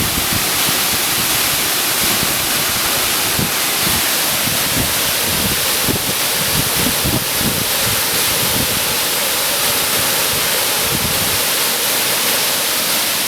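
Waterfall pouring: a loud, steady rush of falling water, with some low buffeting from wind on the microphone.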